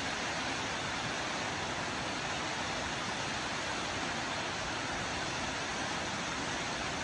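A tall waterfall plunging into its pool: a steady, even rush of falling water.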